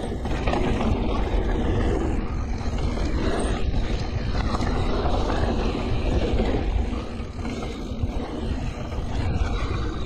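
Wind buffeting an action camera's microphone on a mountain bike riding down a dry dirt trail, mixed with the rumble and rattle of the tyres and bike over the ground, surging and easing as speed changes.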